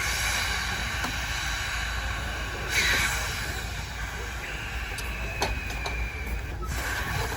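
Sawmill driven by a 1912 Case 40 hp steam traction engine running: steady machine noise with a high whining tone, and a louder hissing rush about three seconds in.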